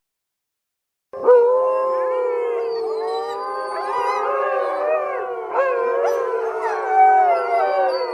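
A chorus of wolves howling together, several overlapping howls sliding up and down in pitch, starting about a second in after a short silence.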